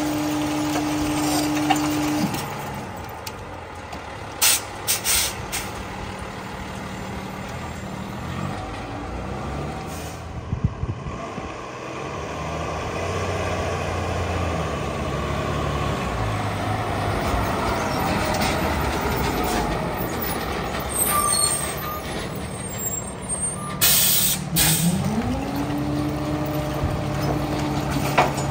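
Freightliner rear-loader garbage truck's diesel engine holding a raised, steady drone that drops off about two seconds in. The engine then runs through driving, with several short air-brake hisses. Near the end the engine speeds up again and holds a steady drone at the stop.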